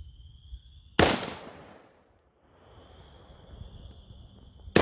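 Two shots from a Zastava PAP M90 AK-pattern rifle in .223, about four seconds apart, each followed by an echo that dies away over about a second. Insects chirr in a steady high tone between the shots.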